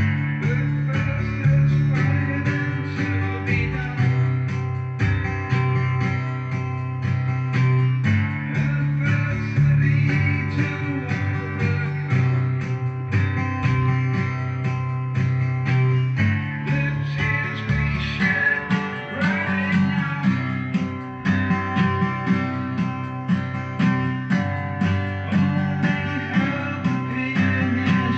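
Guitar music: plucked and strummed guitar over a steady bass line, with some bent notes partway through.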